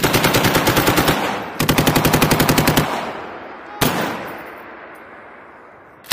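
M240 7.62 mm machine gun firing two rapid bursts of about a second each, a half-second apart, then a single report a little past halfway whose echo rings away slowly.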